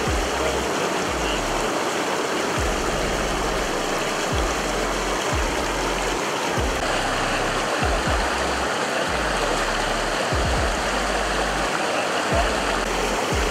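Floodwater rushing and churning in fast rapids across a breached highway, a loud, steady rush of water. A low music bass line runs underneath.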